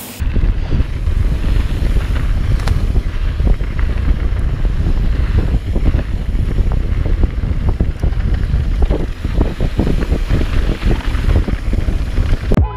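Mountain bike riding fast down a dirt singletrack: heavy wind buffeting on the microphone, with a constant rattle and many small knocks from the tyres and bike frame over the rough trail.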